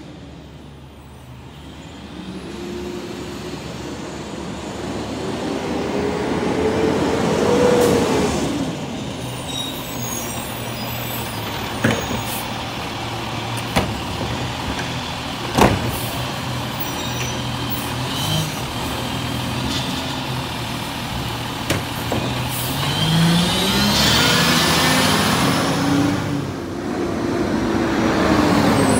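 Automated side-loader garbage truck's diesel engine rising in pitch as it pulls up, then running steadily while the arm empties a cart, with three sharp knocks of the cart being shaken against the hopper. Near the end the engine pitch rises and falls again as the truck works and moves on.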